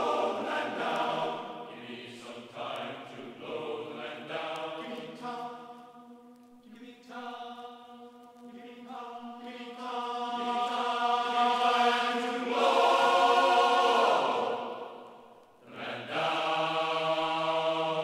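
Background music: a choir singing long held chords that change every second or two. It swells to its loudest past the middle, drops away briefly and comes back near the end.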